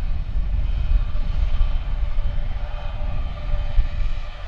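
Jet airliner's engines running, a loud, steady low rumble with several thin whining tones above it.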